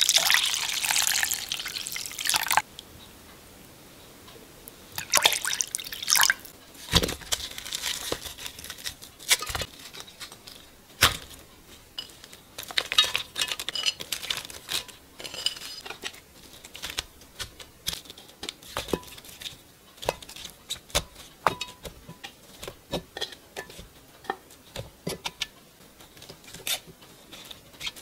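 Water poured from a jug into a glass bowl of seasoning sauce for about two and a half seconds. Then a long run of light knocks, clicks and rustles as onion slices, dried anchovies and radish chunks are laid into a pot by hand.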